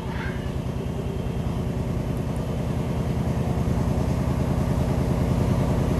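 A low, steady engine rumble with a fast, even pulse, growing slightly louder.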